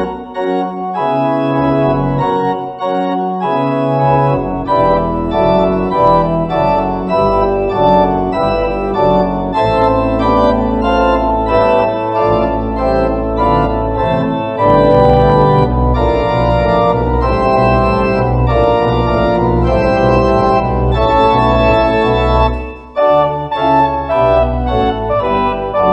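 Organ music: sustained chords with low bass notes coming in about four seconds in, and a brief break near the end.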